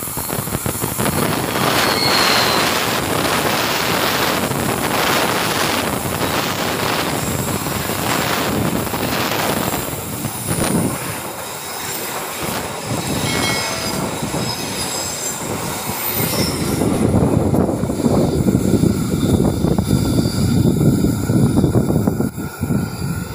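Passenger train hauled by a CC206 diesel-electric locomotive passing close by: engine running and steel wheels rumbling on the rails as the coaches go past, with brief high-pitched wheel squeals on the curve.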